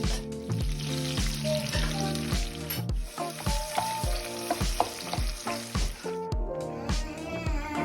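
Food sizzling in a hot pan over background music with a steady beat; the sizzling stops about six seconds in.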